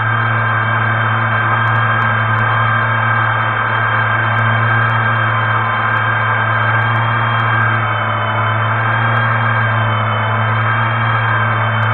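Brushless motors of a GepRC FPV quadcopter spinning at idle after arming, the quad still resting on the ground before takeoff: a steady electric hum that holds one pitch.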